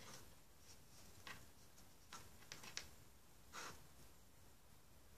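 Near silence, with a few faint light clicks as a plastic crochet hook and rubber bands are handled at a table.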